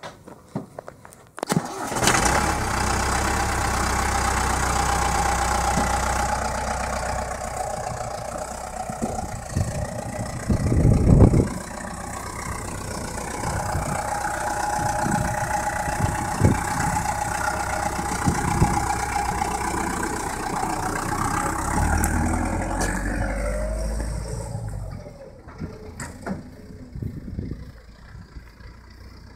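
Armoured Land Rover's engine starting about a second and a half in and then running steadily, with a louder burst about eleven seconds in; the sound falls away near the end as the vehicle drives off.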